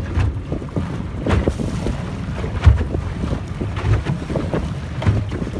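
Wind buffeting the microphone over water rushing and slapping against the hull of an outrigger sailing canoe under way at speed, with irregular splashes, the loudest about midway.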